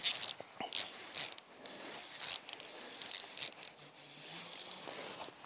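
Fishing reel being worked against a hooked pike, giving irregular mechanical clicks and ratcheting.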